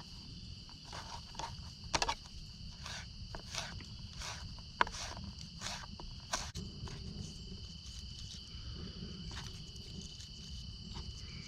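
Knife chopping fresh herbs on a cutting board: irregular sharp taps about every half second, thinning out after about seven seconds. Steady high insect chirring runs underneath.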